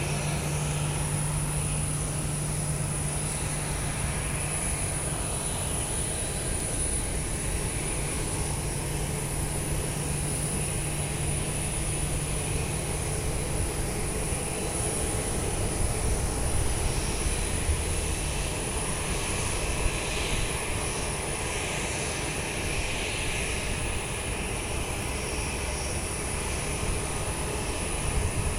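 Aircraft engine running steadily, a continuous low hum over a wash of noise; the hum shifts to a lower pitch about halfway through.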